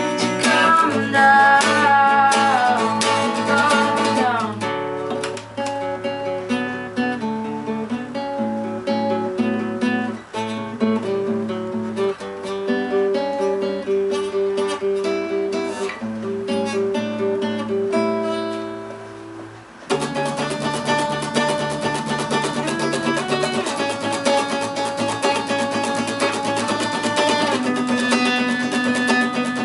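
A band plays a song led by acoustic guitars, strumming and picking. Around 18 seconds in the music thins and fades, then the full arrangement comes back in suddenly about 20 seconds in.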